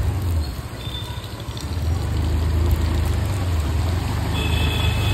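Motor scooter riding through a flooded street: a steady low engine hum, with its tyres running through water on the road.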